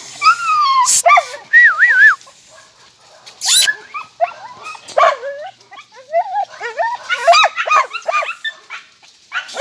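Jagdterriers barking, yelping and whining in high, wavering cries, several dogs calling over one another in agitation.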